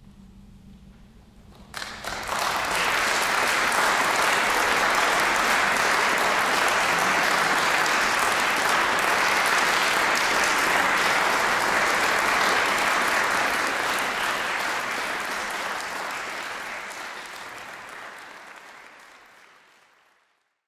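Audience applauding, starting suddenly about two seconds in, holding steady, then fading away over the last several seconds.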